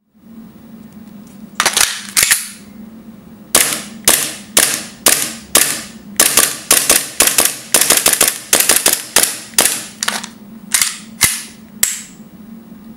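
Custom Tokyo Marui Glock 17 gas blowback airsoft pistol with an aluminum slide firing, each shot a sharp crack of gas release and slide cycling. Three quick shots come first, then after a short pause a fast string of about two dozen shots at roughly four a second.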